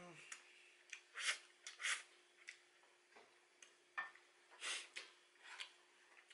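Metal spoon clicking and scraping against a stainless-steel rice bowl as rice is scooped, a dozen or so separate small clicks and short scrapes, with a faint steady hum underneath.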